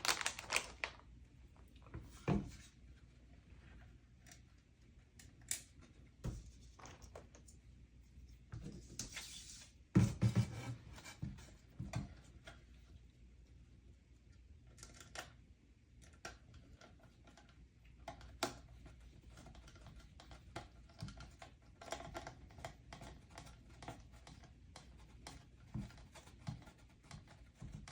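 Small screws being driven into a circuit board's mounting foot: irregular light clicks and taps of the screw, tool and board being handled, with a louder knock and clatter about ten seconds in.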